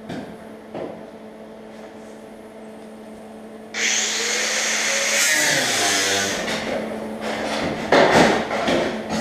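A pneumatic cut-off tool (zip wheel) starts suddenly about four seconds in and runs with a loud air hiss for about two and a half seconds, then spins down with a falling whine. A few knocks and clatter follow near the end.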